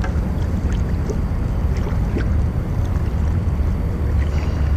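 Steady wind rumble on the microphone, with a few faint ticks.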